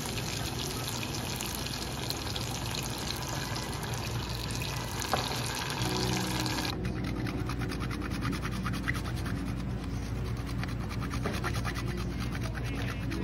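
Garlic and cherry-tomato sauce sizzling and bubbling in a saucepan, with white wine just added. About seven seconds in it cuts to a box grater rasping Parmesan in quick repeated strokes. Soft background music plays throughout.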